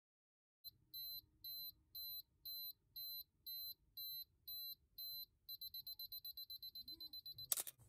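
Canon AE-1 Program's electronic self-timer beeping, about two beeps a second, then quickening to a rapid beep for the last two seconds. The shutter and mirror then fire with a sharp click near the end.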